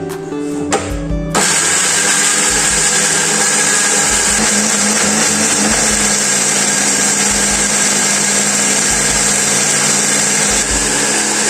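Electric kitchen blender running at a steady speed, grinding the spice paste for grilled chicken; it switches on about a second in and runs loud and even until near the end, over background music with a steady beat.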